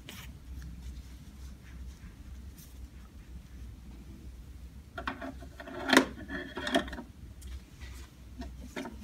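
Low steady room hum with light handling noises, then a short burst of rustling with two sharp knocks about six seconds in.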